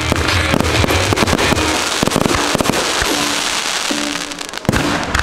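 Aerial fireworks going off in quick succession, a run of sharp bangs and crackling, over a rock song whose heavy bass beat drops out about two seconds in.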